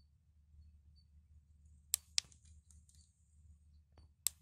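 Faint sharp clicks over a low steady hum: a quick double click about two seconds in and another click near the end.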